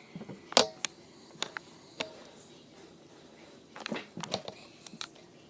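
Slime being squeezed and poked by hand, giving scattered sticky clicks and pops, with a busier run of pops about four seconds in.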